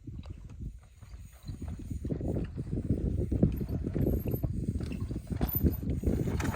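Mountain bike rolling over rock: a low rumble with a fast, irregular run of knocks and clatter from tyres and bike on stone, getting louder about two seconds in.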